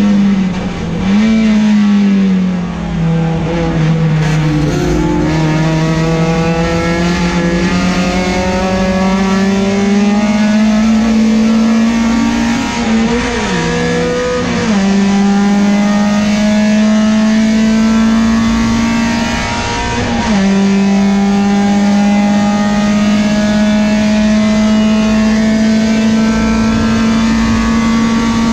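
Peugeot 405 STi race car's engine heard from inside the cockpit, running hard at high revs. Its pitch climbs slowly or holds steady for long stretches, broken by short sharp dips and recoveries about a second in, twice near the middle and again about two-thirds of the way through.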